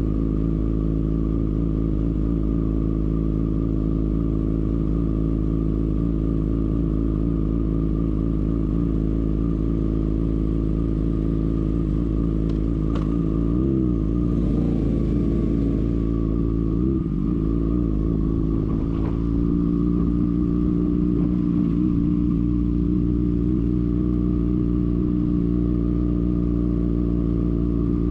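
Sport motorcycle engine idling steadily. About halfway through its pitch lifts and wavers a few times as the bike pulls away, then it settles into a slightly louder steady note as the bike rolls slowly in low gear.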